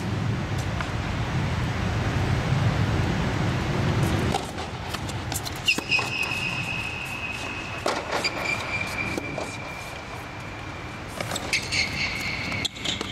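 Tennis rally on an indoor hard court: several sharp racket-on-ball hits about two seconds apart, over a low rumble that fills the first few seconds. A steady high tone runs along with the hits in the second half.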